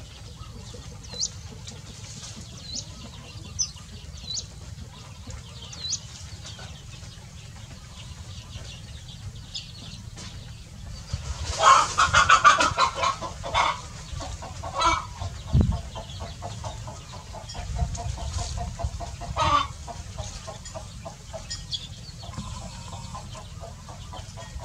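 Chickens: chicks peeping in short, high, falling notes through the first few seconds. About halfway through, the hen breaks into a loud, rapid run of clucks, followed by scattered further clucks.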